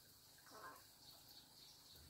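Near silence: faint high chirping repeating in the background, with one brief soft sound about half a second in.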